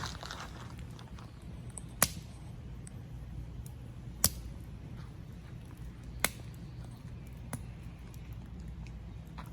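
Campfire burning, wood popping sharply three times about two seconds apart, with a few fainter crackles over a low steady rumble.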